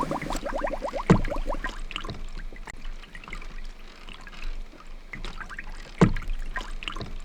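Hand-made foley water sounds: quick bubbling ticks, then small splashes and trickles, with a knock about a second in and a heavier thump about six seconds in.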